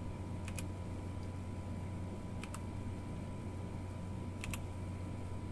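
A few sharp key clicks from a mechanical keyboard with Outemu brown switches, two in quick succession, a single one, then another quick pair, over a steady low hum.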